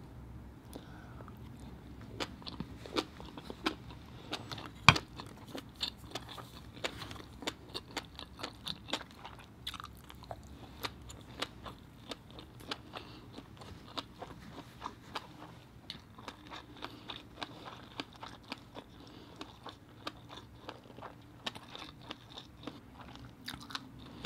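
Close-miked mouth sounds of chewing abalone with fish egg sauce: a continual run of small wet clicks and smacks, with one sharper click about five seconds in.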